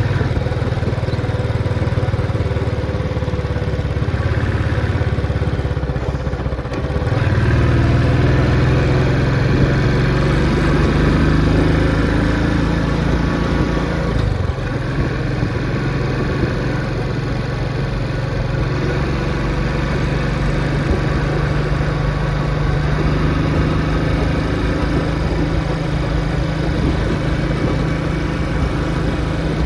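Motorcycle engine running while riding, a steady drone; its note dips and changes about seven seconds in and again about halfway through.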